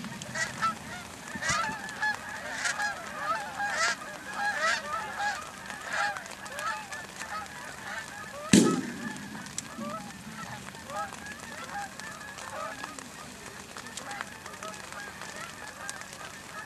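A flock of geese honking continuously overhead, the calls thinning out in the second half. About halfway through, a single loud shotgun blast cuts through the honking.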